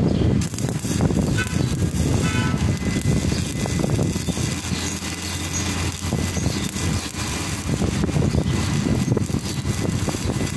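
Stick (shielded metal arc) welding: the electrode arc strikes about half a second in, then crackles and sizzles steadily as the bead is run, over a steady low rumble.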